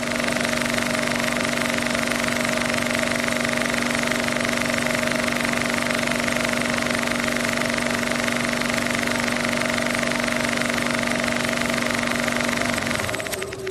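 Film projector running: a steady mechanical whir with a rapid clatter, which cuts off near the end.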